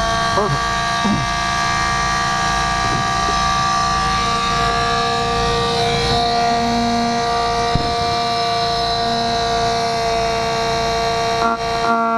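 Corded oscillating multi-tool running with a steady, high whine as its blade trims into a wood wall panel, with a brief dip near the end.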